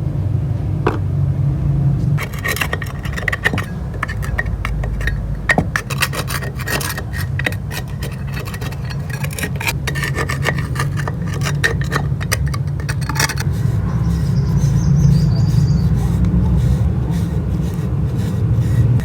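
Rusty metal of a bench vise being scraped and rubbed in many quick strokes, over a steady hum; the scraping stops about two-thirds of the way through while the hum goes on.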